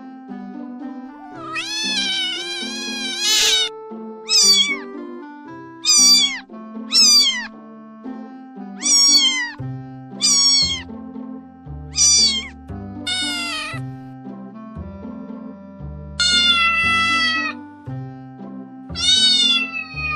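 A domestic cat meowing again and again over background music: about ten meows, most falling in pitch, with two long drawn-out ones, about two seconds in and again about sixteen seconds in.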